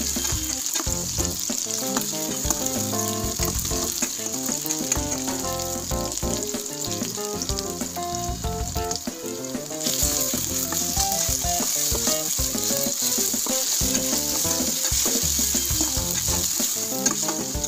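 Chopped onions frying in oil in a stainless steel kadai, sizzling steadily and stirred now and then. The sizzle grows louder about ten seconds in.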